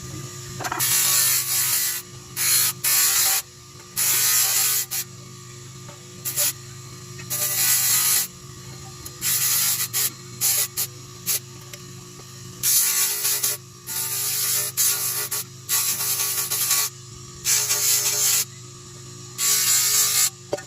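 Repeated strokes of sanding on the kettle's metal body, a dozen or so rasping passes at an uneven pace over a steady low hum.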